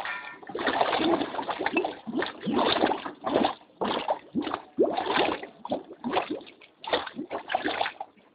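Gas-charged mud welling up from an abandoned water borehole, gurgling and splashing in irregular bursts as gas breaks through the surface.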